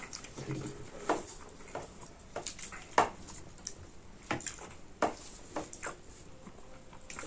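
Light, irregular clinks and taps of dishes and cutlery during a meal, roughly one every half second to second, the loudest about three seconds in.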